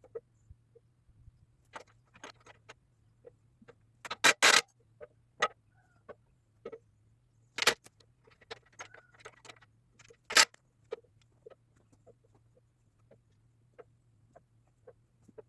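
Irregular light clicks and taps, with louder sharp knocks about four seconds in (a quick group of three), near eight seconds and about ten seconds in, over a faint steady low hum.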